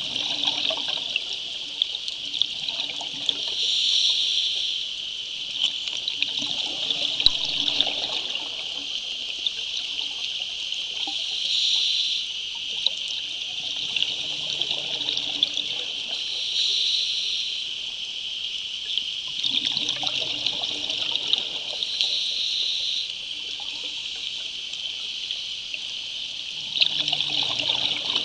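Scuba diver breathing through a regulator underwater: a hissing inhalation and a bubbly, gurgling exhalation recur every few seconds over a steady high crackling hiss.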